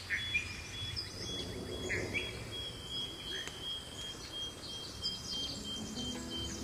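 Forest soundscape: birds giving short chirps and calls, some falling in pitch, over a steady high insect drone. Low held musical tones come in near the end.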